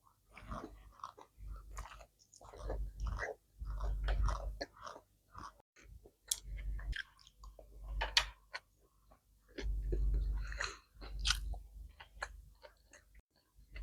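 A person chewing and biting food close to the microphone, in irregular bouts of wet clicks and smacks.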